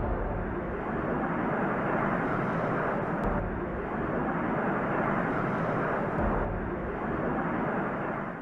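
Jet engine noise from a formation of Aermacchi MB-339 jet trainers flying past: a steady rushing noise that shifts slightly about three seconds and six seconds in.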